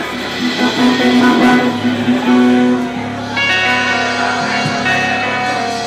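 Guitar music being strummed and played, with held notes and a shift to a new chord about three seconds in.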